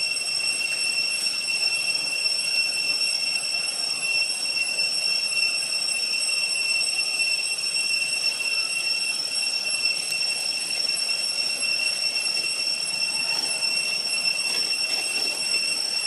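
Steady, high-pitched insect drone that holds one pitch without a break, layered in several tones, over faint rustling background.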